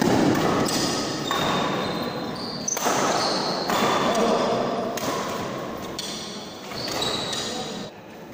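Badminton rally: rackets striking the shuttlecock about once a second, with short high squeaks of shoes on the court floor between the hits, echoing in a large hall.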